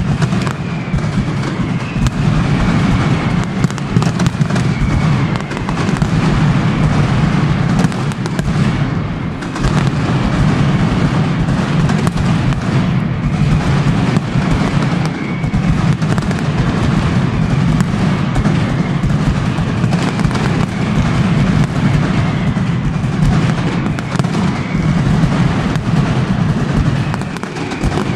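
Mascletà firecracker barrage: a dense, unbroken run of loud bangs, with several whistling fireworks falling in pitch over it.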